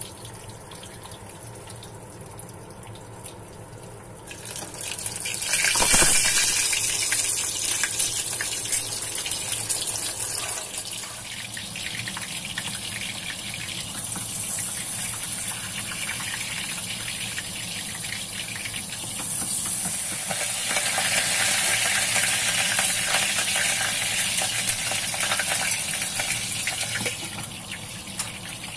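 Hot oil sizzling and spattering around whole boiled eggs frying in a covered saucepan. The hiss swells a few seconds in and again in the second half.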